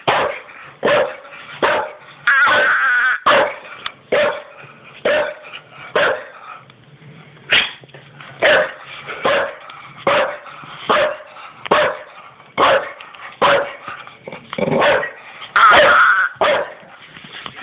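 Pet dog barking repeatedly, about one sharp bark a second, worked up by duck-noise imitations. A few longer, rougher sounds come near the start, about two and a half seconds in and near the end.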